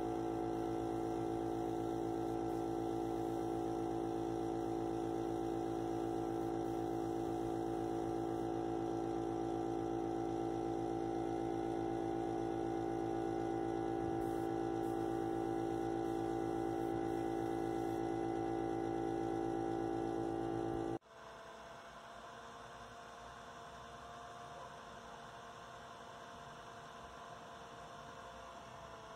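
Air compressor motor running with a steady hum of several fixed tones, powering a paint spray gun. It cuts off abruptly about 21 seconds in, and a quieter steady hum follows.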